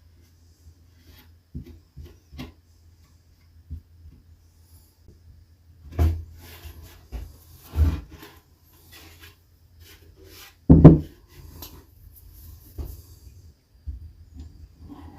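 Plywood cabinet panels being handled and fitted together: scattered wooden knocks with some rubbing and scraping, the loudest knock about eleven seconds in.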